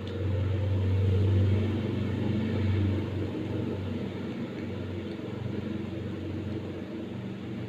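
A low steady rumble that swells over the first three seconds, then eases off and carries on more quietly.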